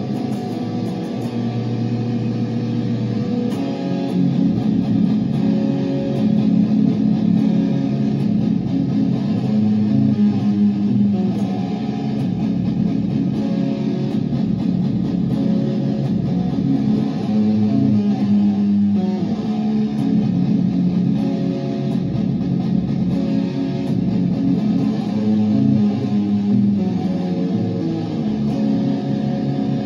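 Jackson seven-string electric guitar being played continuously, with chords and notes ringing into one another and no pauses.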